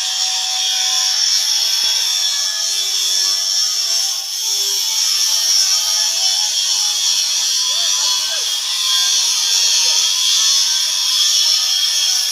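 Electric arc welding on a water tank's bottom: the arc gives a steady, high-pitched hiss.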